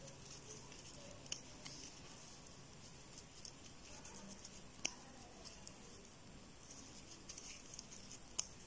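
Faint, scattered small clicks and scratchy rustling of a crochet hook working t-shirt yarn as single crochet stitches are made.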